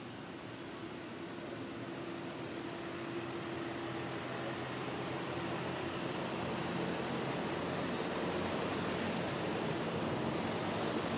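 Steady rushing noise with a faint low engine hum, slowly growing louder, as of a distant motor vehicle approaching.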